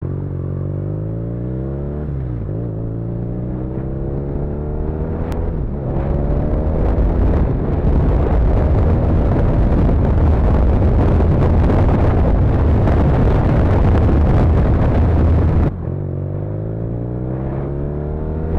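BMW R nineT's 1170 cc boxer twin accelerating through the gears with clutchless upshifts: the engine note climbs, drops sharply at each shift (about two and five seconds in), then climbs again. Through the middle a loud, steady rush of wind at speed covers the engine. Near the end, after a sudden break, the engine pulls up from low revs again.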